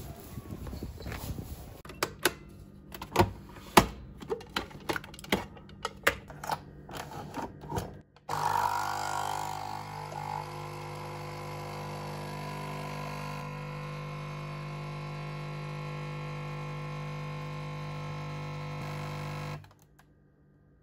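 For about eight seconds, a run of irregular sharp knocks and clicks. Then an espresso machine's pump runs with a steady hum as coffee pours into a glass, loudest just after it starts, and stops shortly before the end.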